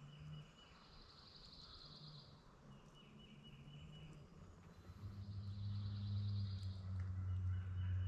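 Songbirds singing repeated trilled phrases in the dawn woods, two songs trading off, one higher than the other. Over the second half a low steady hum comes up and becomes the loudest sound.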